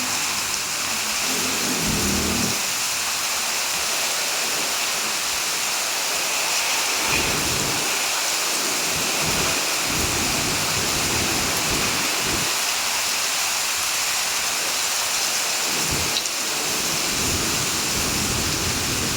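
Heavy rain falling as a steady hiss, with low rumbles that come and go several times.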